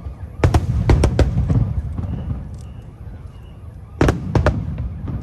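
Aerial fireworks shells bursting: a quick cluster of sharp bangs about half a second in and another about four seconds in, each followed by a low rumbling echo.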